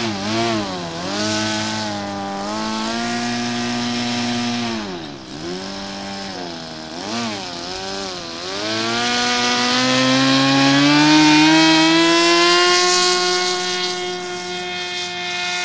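Nitroplanes Kangaroo RC model plane's .46 glow engine. The throttle goes up and down several times during the ground roll, then opens to a steady high whine for the takeoff run.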